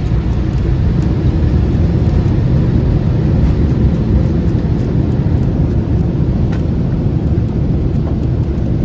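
Boeing 767 cockpit during the landing rollout: a loud, steady, low rumble of the airliner decelerating on the runway.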